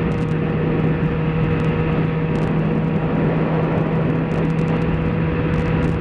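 Yamaha XJ6's 600 cc inline-four engine running at a steady cruise, its note holding level throughout, with wind rushing over the microphone.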